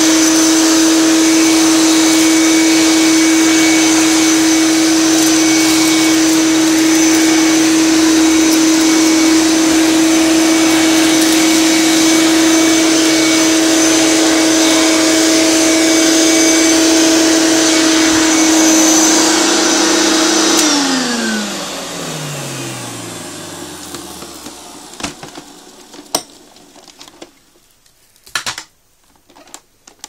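Hoover Turbopower vacuum cleaner motor running loud and steady with a high whine. About two-thirds of the way through its motor winds down, the pitch sliding down as it fades, and a few sharp clicks and knocks follow near the end.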